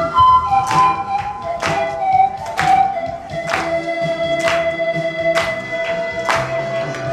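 Pan flute ensemble playing a slow melody over a backing track with a steady beat, settling into a long held note in the second half.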